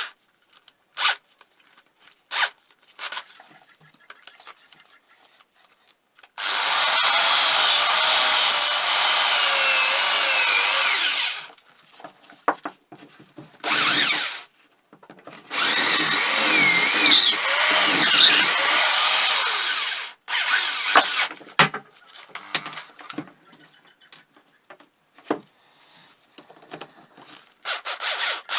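A handheld power tool run in two long bursts of about five seconds each, its whine wavering in pitch as it works against the material. Short knocks and scrapes come between the bursts.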